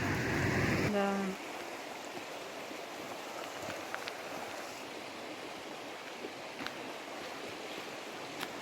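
Stream running: an even, steady rush of water with a few faint ticks. It follows a louder rumbling noise that cuts off abruptly about a second in with a brief pitched sound.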